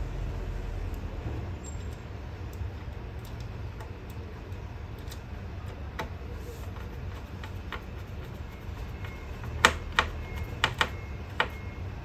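Screwdriver driving the small retaining screw that holds an M.2 NVMe SSD to a desktop motherboard: faint ticks and scrapes over a low steady rumble, then a quick run of four or five sharp clicks near the end as the screw is worked tight.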